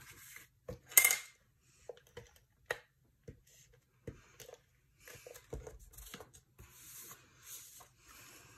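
Cardstock being handled on a craft mat, with a few light taps and clicks; the sharpest comes about a second in. From about halfway on, a Stampin' Up! Stamp & Seal tape runner rolls adhesive onto the back of a cardstock layer, making a soft, steady scratchy noise.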